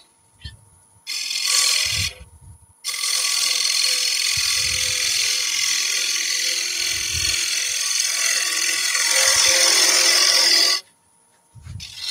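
Wood lathe spinning a lid while a turning gouge cuts its small knob: a hissing, scraping cut in a short pass about a second in, then one long continuous cut of about eight seconds, over the lathe's faint steady hum.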